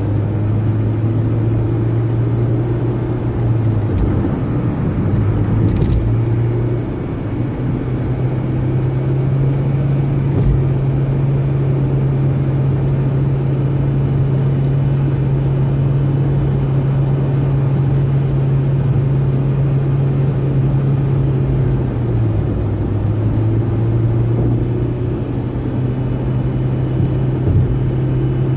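A car driving at freeway speed: a steady low drone of engine and tyre noise. The drone's pitch steps up about seven seconds in and falls back near the end, and a few faint knocks come in the first ten seconds.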